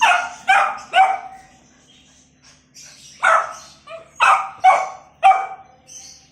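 Beagle puppy barking: three quick barks, then after a pause of about two seconds a run of four more.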